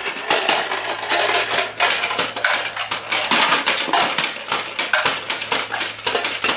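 Hard plastic toy parts clattering and rattling as a toy dumpster and Lego bricks are handled against a Bruder toy garbage truck: a dense, irregular run of small clicks and knocks.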